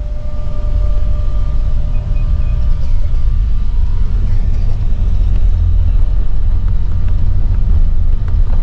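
Steady low rumble of engine and road noise inside a moving intercity coach.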